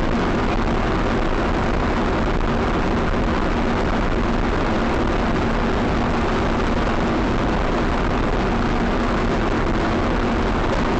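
Steady loud noise of a vehicle on the move, as picked up by a dashcam microphone, with a faint engine hum under it.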